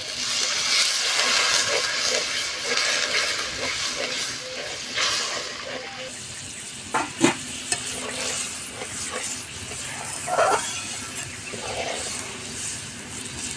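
Water poured into hot fried masala in a kadai, sizzling loudly for about the first six seconds before dying down. Then a metal spatula stirs the gravy, scraping the pan, with a sharp knock against it about seven seconds in and a few more later.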